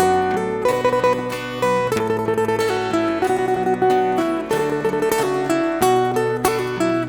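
Acoustic guitar playing an instrumental intro, notes picked one after another in a steady rhythm.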